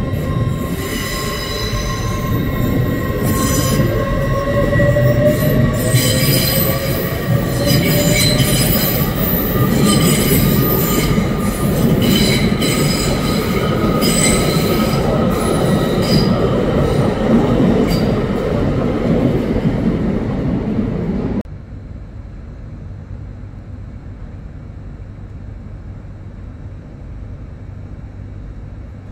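A train moving along a platform: steel wheels squealing on the rails over a heavy rumble, with a whine that rises in pitch. About 21 seconds in, it all cuts off suddenly to a much quieter steady rumble.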